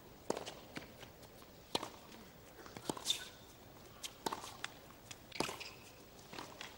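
Tennis rally on a hard court: racket strikes and ball bounces as sharp, irregularly spaced knocks, with players' footsteps and a shoe squeak about three seconds in.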